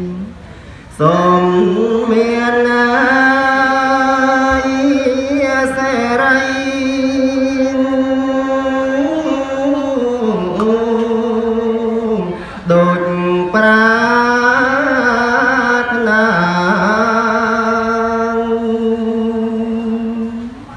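Khmer smot: a man chanting Buddhist verse solo and unaccompanied into a handheld microphone, in long held notes with wavering, sliding ornaments. He breaks off briefly for breath about a second in and again near the middle.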